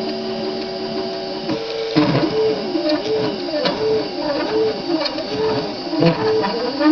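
Stepper motors of a homemade CNC pen plotter whining as the marker is driven across the paper. For the first second and a half the whine holds a steady pitch. Then it rises and falls over and over, about every two-thirds of a second, as the pen traces a small scalloped line.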